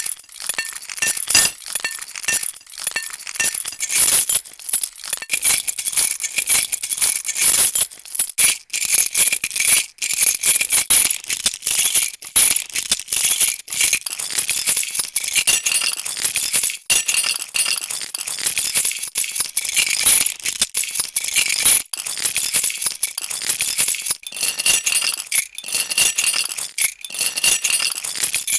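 A bunch of metal keys jangling and shaken continuously, a dense stream of bright clinks and small rattles with no pauses.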